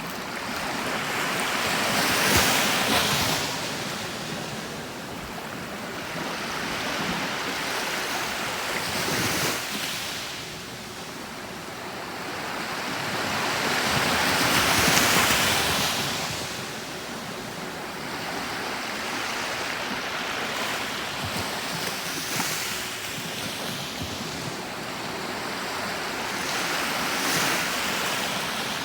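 Gentle sea waves breaking and washing up a beach. The surf swells and fades about every six seconds, and the loudest wave comes about halfway through.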